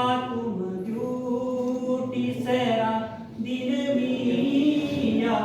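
Singing voice holding long drawn-out notes, the pitch stepping between them every second or so.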